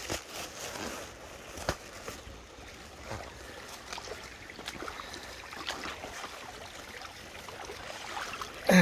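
Shallow creek water running, with splashing and sloshing as someone wades through it, plus scattered small knocks, one sharper knock about two seconds in. A short voice sound near the end.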